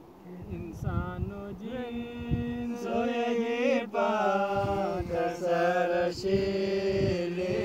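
A man singing an unaccompanied folk song in a chant-like style, holding long notes with a wavering, bending pitch.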